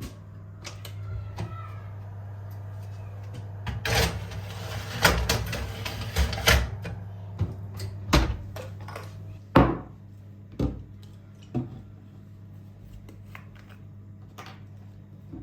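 A run of sharp knocks and clatters, like objects being handled and set down on hard surfaces, clustered in the middle with the loudest one about ten seconds in, over a steady low hum.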